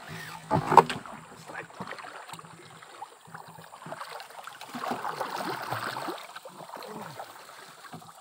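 Water sounds around a small fishing boat: one sudden loud hit about a second in, then a longer rush of splashing water from about four to seven seconds.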